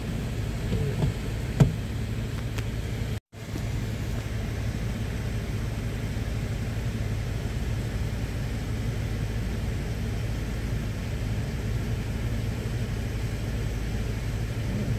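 Steady low engine and drivetrain rumble heard inside an off-road vehicle's cabin as it drives slowly along the trail. There is a sharp knock about one and a half seconds in, and the sound cuts out for an instant about three seconds in.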